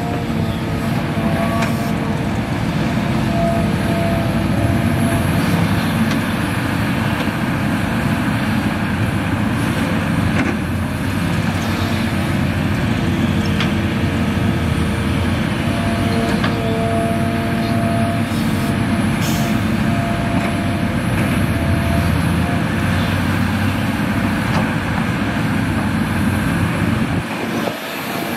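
Hitachi Zaxis 350H excavator's diesel engine running steadily under load as the machine digs soil, with a higher whine that comes and goes over the engine.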